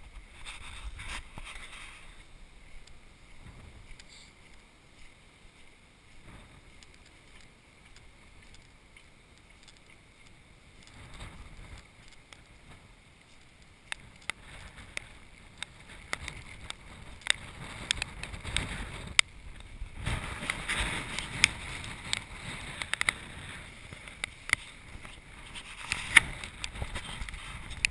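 Splashing and crackling of travel over a wet, muddy dirt track, with scattered sharp clicks. It gets busier and louder about twenty seconds in.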